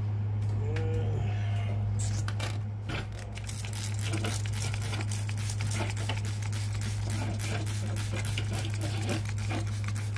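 Trigger spray bottle misting a plant's bare roots in a plastic tray: a rapid run of short spritzes from about two seconds in, over a steady low hum.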